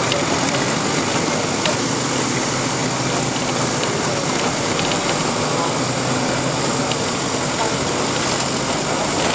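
Nova Bus RTS transit bus heard from aboard, its Detroit Diesel Series 50 engine running steadily under a wash of road and cabin noise, with indistinct voices in the background.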